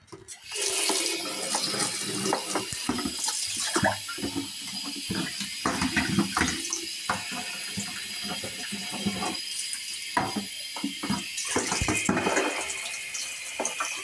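Kitchen tap turned on about half a second in and running steadily, water splashing onto a plastic bowl being rinsed under it. Short knocks and clatters come from the bowl being handled in the sink.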